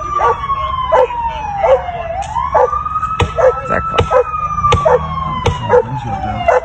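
Police siren wailing in a slow rise and fall, dipping low twice. Over it a police dog barks steadily, about every 0.7 s, with a few sharp knocks in the middle.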